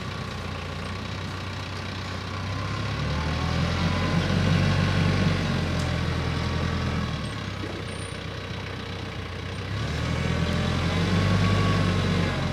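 TYM diesel tractor engine running a three-point PTO post hole auger. The engine note swells twice as the auger is loaded, boring into the ground.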